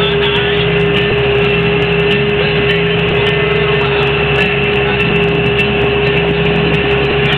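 Montana 4940C tractor's diesel engine running steadily, heard from inside the cab: a constant low hum with a steady whine over it.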